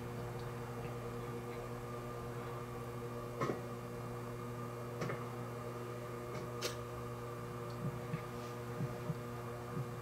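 A steady low hum holding several fixed pitches, with a few faint clicks scattered through it.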